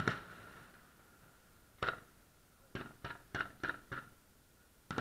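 Fireworks shells bursting: a sharp bang with a lingering echo, another about two seconds in, then a quick run of five pops about a third of a second apart, and one more bang near the end.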